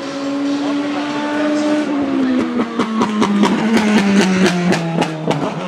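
Mercedes-AMG C63 DTM's 4.0-litre V8 race engine holding a steady high note, then lifting off about two seconds in: the pitch falls as it slows, with a rapid run of exhaust crackles and pops on the overrun.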